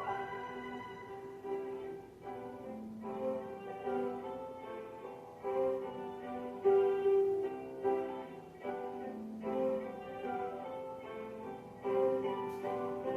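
Slow instrumental background music, with sustained melodic notes that change about every second.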